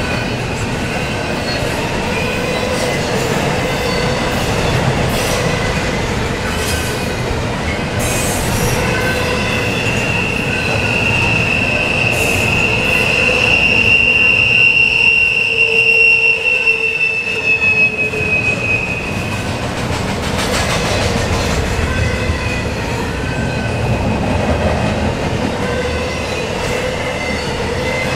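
Cars of an intermodal container freight train rolling past with a steady, loud rumble and wheel clatter. A high-pitched steel wheel squeal sets in about a third of the way through and fades out after roughly ten seconds.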